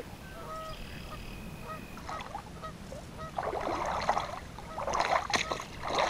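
Wading steps splashing and sloshing through shallow river water, getting louder as the wader comes closer. A few faint goose honks in the first second or two.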